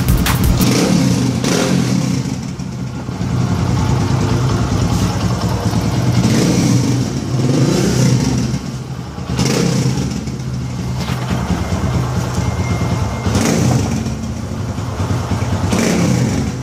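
Bajaj V15's single-cylinder engine running through a short aftermarket slip-on exhaust, idling with a series of throttle blips that rise and fall in pitch.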